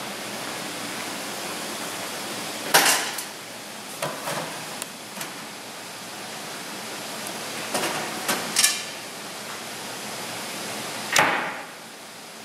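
Stack of brass test sieves being set into a rotary lab sifter cabinet: scattered metallic clanks and knocks, the loudest about three seconds in and near the end, with a cluster of smaller ones in the middle. A steady hiss runs underneath.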